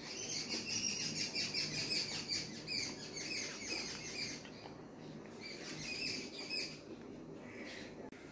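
Small animal chirping in quick runs of high, evenly repeated chirps, several a second. A long run is followed by two shorter ones after brief pauses.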